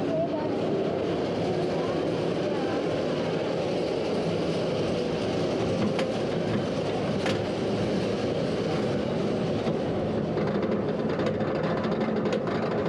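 Kumba's Bolliger & Mabillard steel roller coaster train rolling slowly along its track out of the station and onto the chain lift hill, with a steady rumble. A couple of sharp clicks come about halfway through. A rapid clicking starts in the last few seconds as the train climbs the lift.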